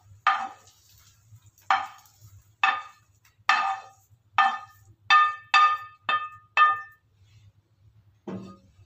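A kitchen utensil striking a dish about nine times in sharp clinks, each with a short ringing tone, coming faster from about halfway. A duller knock follows near the end.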